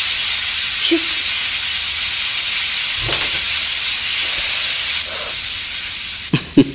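Stovetop pressure cooker venting steam through its weight valve in a steady hiss. The hiss softens about five seconds in, and a few short, loud sounds come near the end.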